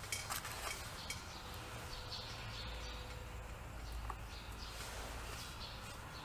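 Quiet handling of a leather sheath and small metal rivet parts on a steel rivet anvil: a few light clicks in the first second and one more about four seconds in, over a low steady hum.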